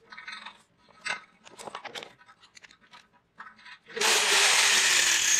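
Light scraping and clicking of a drill bit against a broken bolt in a scooter engine's casing. About four seconds in, the electric drill starts abruptly and runs at full speed, boring a hole through the bolt so it can be extracted.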